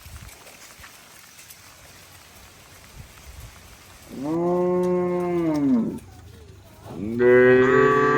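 Cattle mooing twice: a long low moo about four seconds in, its pitch rising then falling, then a second, louder moo starting near the end. Steady rain hiss lies underneath.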